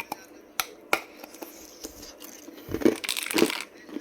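Ice being bitten and crunched in the mouth: a few sharp cracks in the first second, then a loud run of crunching near the end.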